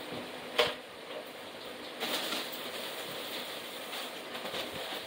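One sharp knock about half a second in, then soft rustling and shuffling.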